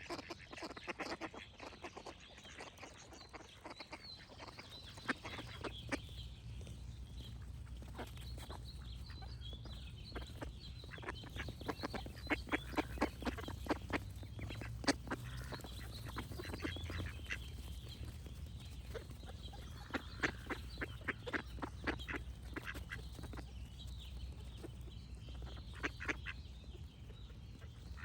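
Ducks quacking in runs of quick calls, with small birds singing faintly higher up and a low steady rumble underneath.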